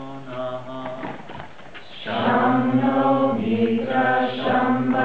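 A man's voice leads a closing yoga chant alone in short held phrases, then about two seconds in the whole group joins in unison, much louder and fuller.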